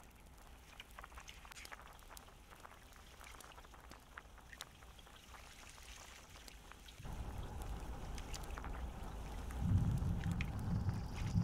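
Water dripping and splashing as a plastic basin is dipped into a shallow stream and poured out. From about seven seconds in it turns louder, with heavier sloshing near the end.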